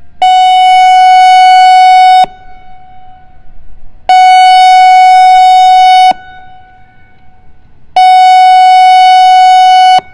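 ASC I-Force 1600 electronic outdoor warning siren sounding its pulse tone: three loud, steady, single-pitch blasts about two seconds each, separated by about two-second gaps, each cutting off sharply with a faint echo trailing after.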